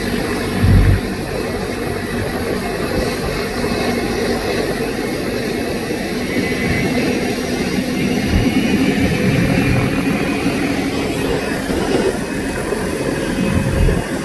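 A vehicle engine running steadily, with a few brief low thumps.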